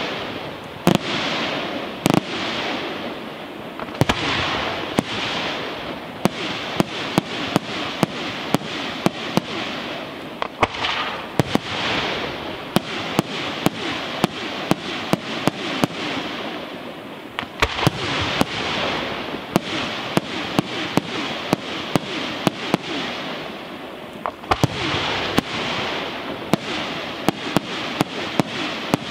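Aerial firework shells bursting in rapid succession: many sharp bangs, a few each second, over a steady noisy hiss that swells and fades.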